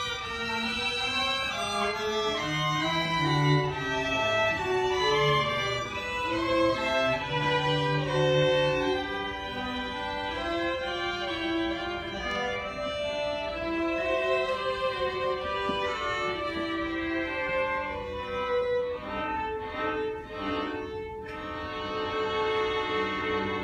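String quartet of two violins, viola and cello playing together live, with bowed notes moving in pitch. Low cello notes stand out in the first half, and the group settles onto a held chord near the end.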